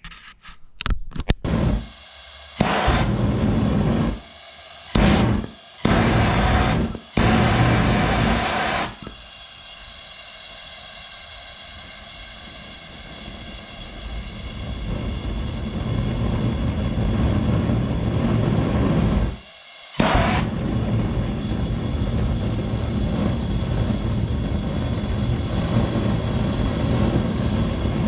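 Gas foundry-furnace burner clamped in a vise, firing in open air with a rumbling roar. It comes on in several short loud bursts in the first few seconds, then burns continuously, growing louder. The flame is large and yellow, and the owner blames the uneven running on the cheap supplied regulator.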